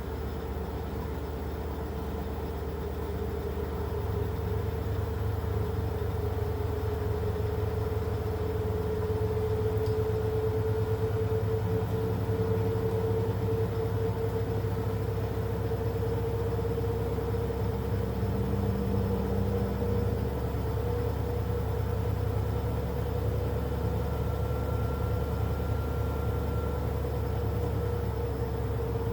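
Beko 10 kg, 1400 rpm washing machine running: a steady motor whine over a low drum rumble, growing louder about four seconds in and again a few seconds later.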